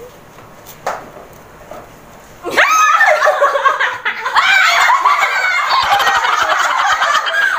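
A few soft knocks in a quiet room, then about two and a half seconds in, several women burst into loud, high-pitched shrieking laughter that carries on.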